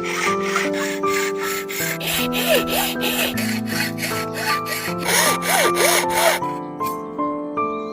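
A hand tool worked back and forth on wood in quick, even rasping strokes, about four a second, with some squeaks, stopping near the end. Soft background music plays throughout.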